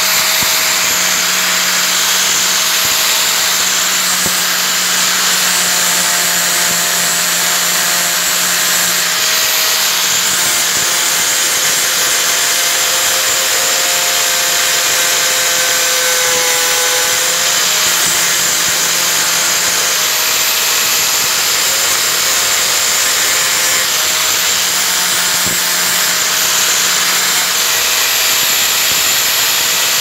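Handheld angle grinder running continuously while grinding a workpiece: a steady motor whine over a loud hiss, wavering slightly in pitch.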